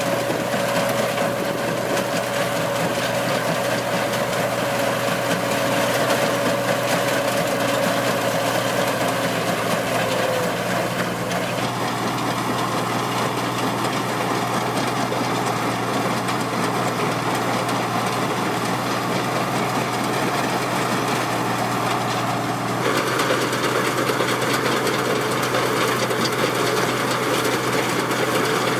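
Tracked combine harvester running steadily as it harvests rice, its engine and machinery making a continuous hum. The tone of the sound shifts about twelve seconds in and again about twenty-three seconds in.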